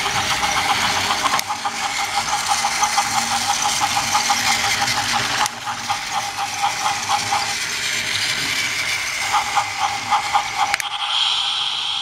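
Battery-powered Trackmaster motorized Spencer toy engine running on plastic track. Its small electric motor and gears make a steady whine with a rapid, regular clicking of about five clicks a second. The motor sound cuts off suddenly near the end.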